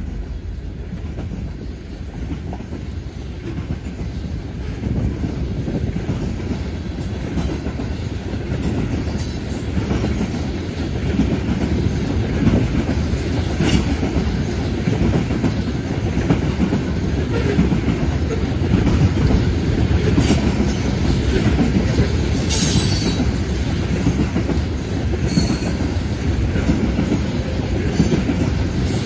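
Freight train tank cars rolling past, their steel wheels rumbling and clicking steadily on the rails, louder partway through, with a few brief high-pitched wheel squeals.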